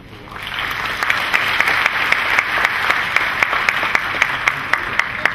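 Audience applauding at the end of a talk, swelling up over the first second into steady clapping, with one nearby pair of hands clapping sharply about four times a second above the rest.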